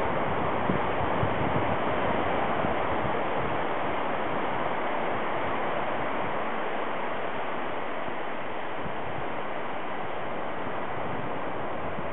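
Steady rush of surf and wind on a sandy beach, an even hiss with no single wave break standing out.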